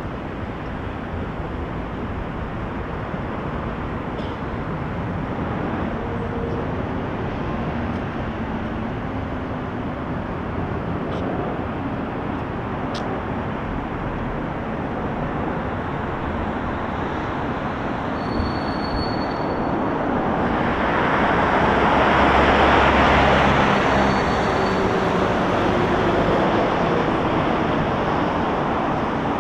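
Steady city traffic hum with one vehicle passing close, swelling to its loudest about two-thirds of the way through, then fading.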